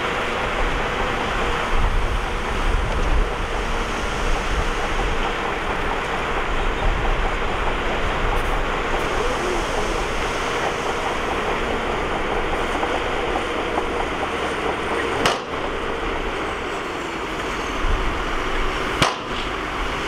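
Shantui bulldozer's diesel engine running steadily while working, with a dense continuous machine noise. Two sharp clicks, about four seconds apart, near the end.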